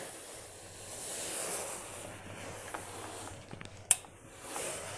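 Tailor's pressing iron sliding and pressing over the woollen jacket cloth, a steady hiss that swells twice, with one sharp click about four seconds in.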